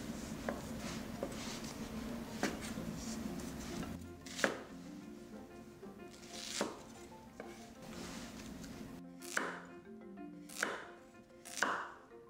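Chef's knife cutting shiitake mushrooms, onion and then carrot on a wooden cutting board: single strokes knocking on the board, roughly one every second or two, with the sharpest strokes in the second half.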